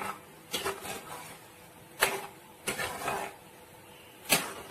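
Steel spatula stirring a thick, liquid curry in a metal kadai, scraping the bottom of the pan in several separate, irregular strokes.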